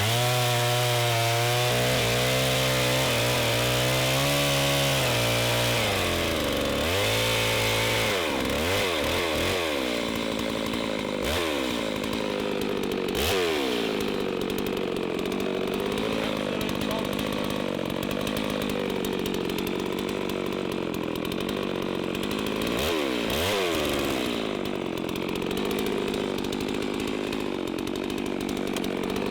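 Holzfforma G660 two-stroke chainsaw running hard at high revs. Its pitch dips sharply and climbs back several times in the middle and twice more later on.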